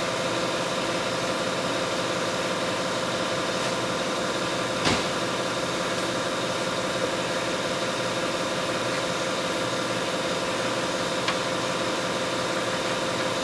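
Steady mechanical hum from a running machine, even in pitch throughout, with one sharp click about five seconds in.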